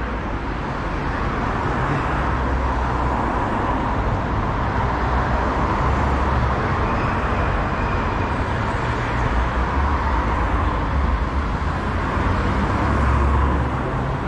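Road traffic on a city street: cars and a bus running along the road beside the pavement, a steady rumble that swells a little near the end.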